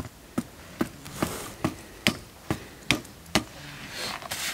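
A Nikon D3 camera body, fitted with an 80-200 mm lens, used as a stake hammer: a steady run of about nine knocks on a tent stake being driven into gravelly ground, about two a second, followed by a short rustle near the end.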